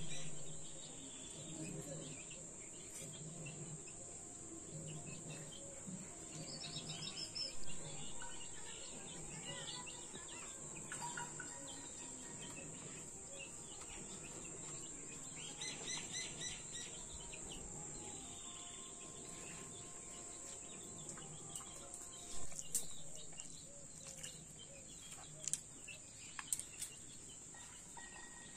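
Outdoor ambience: a steady high-pitched insect drone, with birds chirping now and then. A few short clicks or knocks come near the end.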